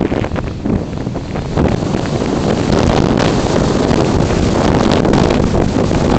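Wind rushing over the microphone of a camera carried on an RC slope glider in flight, with no motor sound. The rush grows louder over the first two and a half seconds, then holds steady, with scattered crackles of buffeting.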